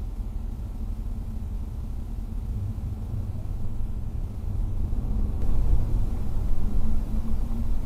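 Car driving on a highway, heard from inside the cabin: a steady low rumble of engine and road noise, somewhat louder in the second half.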